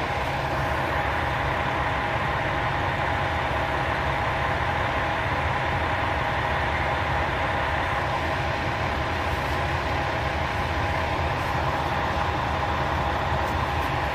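KTR8000 diesel railcar idling while standing at the platform: a steady low engine rumble with a constant hum over it.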